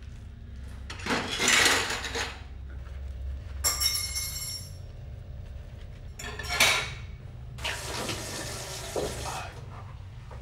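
Dishes being washed in a stainless-steel kitchen sink: water splashing and running, crockery and cutlery clattering, with a ringing clink of a dish about four seconds in. A steady low hum runs underneath.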